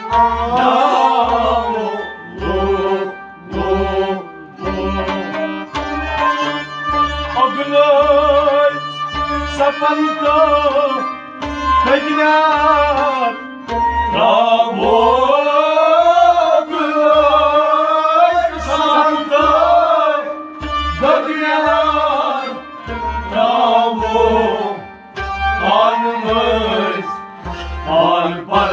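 Male voices singing a devotional folk song to harmonium and bowed sarangi accompaniment, over a steady low drum beat a little more than once a second.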